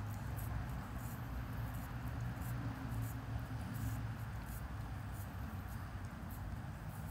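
Husky licking and gnawing the knuckle end of a large femur bone: faint irregular clicks and scrapes of tongue and teeth on bone, over a low steady rumble.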